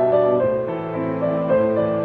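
Background instrumental music, with held notes that change about every half second.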